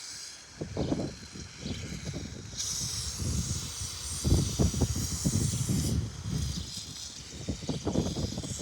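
Aerosol can of penetrating chain grease spraying in a long hissing burst of about three and a half seconds onto a bicycle chain, with the tail of a shorter burst at the start. Knocks and rattles from the bike being handled run alongside.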